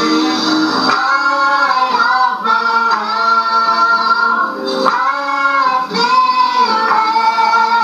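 A gospel song sung live into microphones by a man, a young girl and a young woman, over a prerecorded accompaniment track, with several long held notes.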